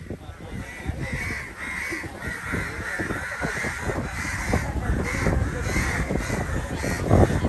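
A flock of crows cawing, many short calls one after another and overlapping, over a steady low rumble.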